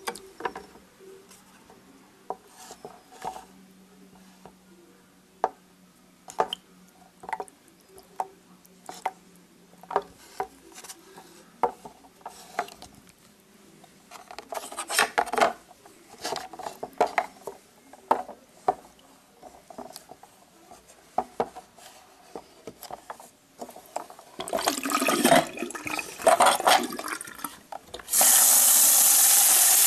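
Liquid sloshing in a plastic tub, with the circuit board clicking and scraping against the tub's bottom as it is pushed around and the tub is rocked, in a few louder bouts of swishing. Near the end a faucet starts running steadily onto the board.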